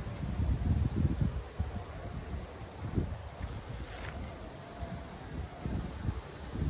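Crickets chirring steadily at night, a continuous high trill, over an uneven low rumble.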